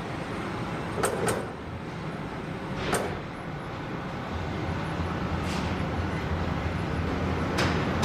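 Steady low machinery hum that grows stronger about four seconds in, with a handful of sharp, irregular knocks over it.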